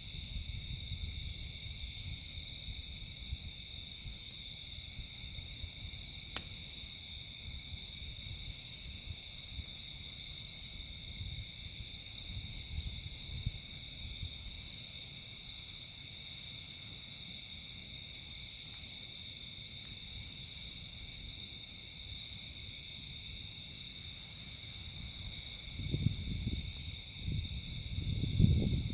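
A steady chorus of insects trilling without a break, over a low rumble. There is one sharp click about six seconds in, and louder low knocks and bumps near the end.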